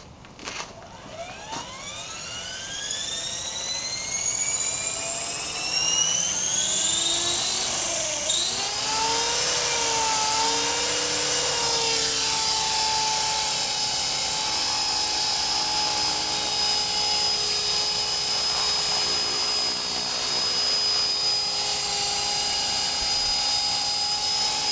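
CopterX 450SE electric RC helicopter spooling up: the brushless motor and rotor whine rises steeply in pitch over the first several seconds. It then settles to a steady high whine as the helicopter lifts off and hovers, wavering briefly in pitch around eight to twelve seconds in.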